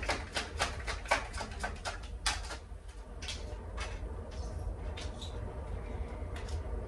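Tarot deck shuffled by hand: a run of quick card flicks and taps, about four a second, thinning out after about two and a half seconds. A steady low hum runs underneath.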